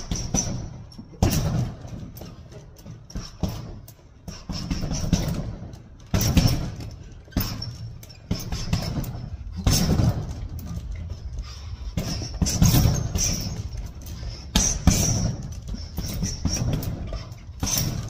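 Bare fists thudding into a leather heavy bag in flurries of punches a second or two apart, the bag's hanging chain jingling with the blows.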